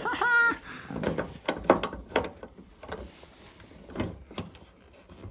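Scattered clicks, knocks and light rattles of hand tools and metal fasteners being handled. A short voiced sound comes right at the start, and the clicks thin out toward the end.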